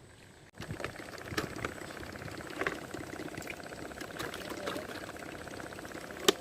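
Water bubbling and splashing, starting suddenly about half a second in and going on steadily with many small clicks and a fast fine rattle. Two sharp clicks come near the end.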